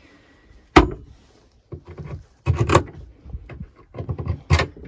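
Wooden dresser-cabinet doors being swung shut and fastened: a sharp knock about a second in, then a string of smaller knocks and rattles.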